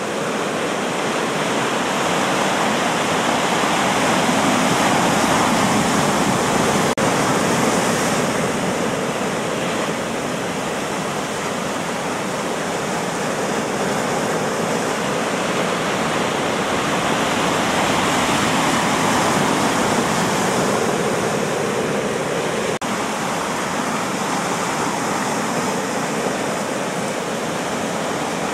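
Sea surf breaking and washing over a rocky shore: a steady rushing that slowly swells and eases, louder twice.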